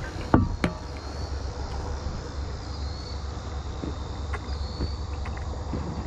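Two sharp knocks in the first second from hands handling a chest-mounted action camera, over a steady low rumble. Faint short high chirps come now and then.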